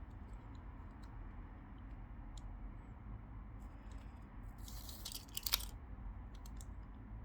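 Midea air conditioner running with a steady low hum and faint scattered clicks, with a short burst of crackling and sharp clicks about five seconds in: the kind of click noise the unit is being repaired for.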